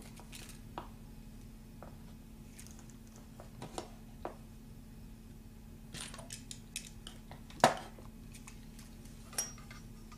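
Scattered light clicks and taps of soldering tools and wire being handled at a workbench while wires are tinned, with one sharper knock about three-quarters of the way through. A steady low hum runs underneath.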